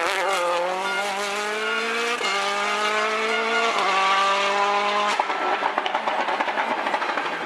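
Rally car engine accelerating hard, its note climbing through two quick upshifts, then the driver lifts off about five seconds in and the exhaust gives a rapid run of popping and crackling.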